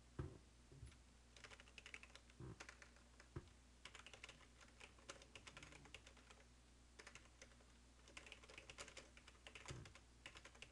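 Faint computer keyboard typing in several short runs of quick keystrokes, over a low steady hum.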